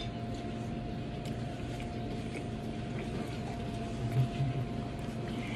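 Steady restaurant room tone: an even low hum with a thin steady tone over it and scattered faint clicks, and a brief low sound about four seconds in.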